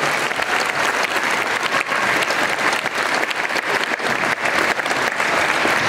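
Audience applauding: many people clapping steadily in a gymnasium, acknowledging a group of students being honored.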